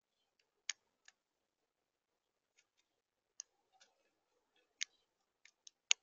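Irregular sharp clicks of birds' beaks pecking and cracking seed in a plastic feeder tray, about eight in all, the loudest just before the end.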